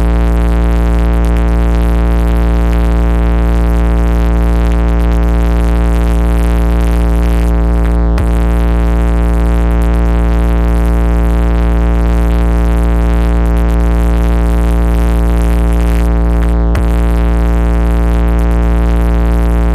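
A single held synthesizer tone with heavy bass, unchanging, played loud through a DJ loudspeaker system as a sound test. Faint clicks come about 8 and 17 seconds in.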